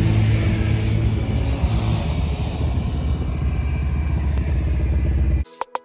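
Bajaj Dominar 400 motorcycle's single-cylinder engine idling steadily. Near the end it cuts off suddenly into a rapid stuttering glitch sound effect.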